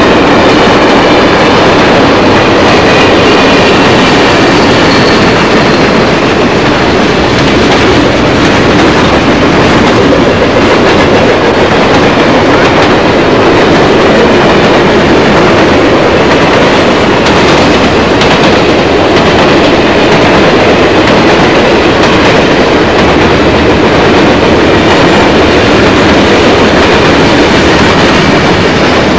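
A train's cars rolling past close by, a loud, steady rumble and rattle of wheels on the rails that goes on without a break.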